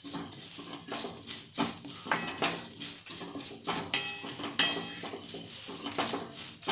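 Wooden spatula scraping and knocking around a steel kadai as white poha (flattened rice) is stirred and roasted in ghee, the dry flakes rustling against the metal in irregular strokes about two a second.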